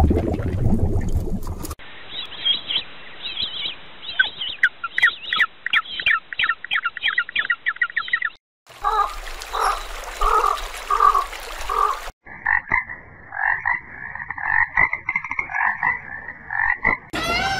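Frogs calling in a series of short clips cut one after another: each clip has a run of short croaks or trills repeated several times a second, at a different pitch from the last.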